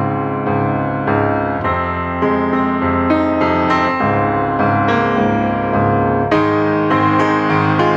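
Background music led by piano, notes struck in a flowing, steady succession over held bass tones.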